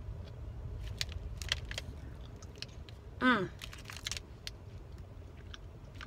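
A person chewing a bite of protein bar, with small crunching clicks and crinkles from the bar and its plastic wrapper, and one short falling 'mmm' hum about three seconds in, the loudest sound. A low steady car rumble runs underneath.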